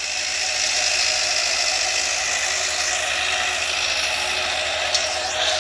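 Arjun Novo 655 tractor working a super seeder through paddy stubble: a steady mechanical whir of the engine and the seeder's rotor, with one short click about five seconds in.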